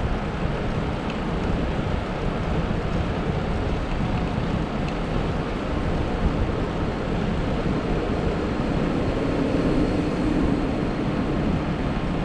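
Steady rush of wind over the microphone of a camera riding on a moving bicycle, with low road rumble.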